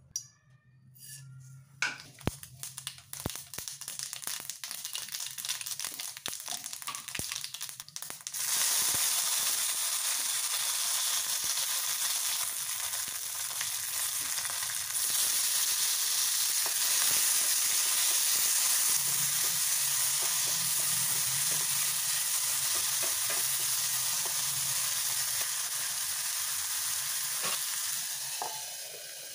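Tempering in hot oil in a kadai: sharp crackling pops of seeds spluttering, then from about eight seconds in a loud, steady sizzle as more ingredients go into the oil. The sizzle drops near the end.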